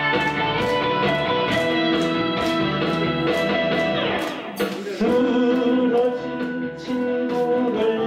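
Live song accompaniment led by an electric guitar melody over a backing track with a steady beat, with the audience clapping along in time. A little past the middle there is a short falling slide and a brief drop before the melody comes back in.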